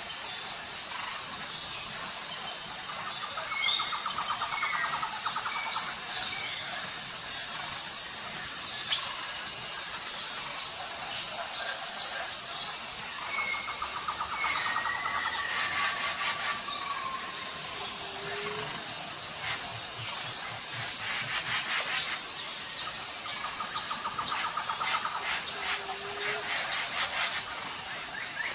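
Forest ambience: a steady, high-pitched insect chorus pulsing evenly, with scattered short bird chirps and whistles, a few trilling calls and some brief clicks.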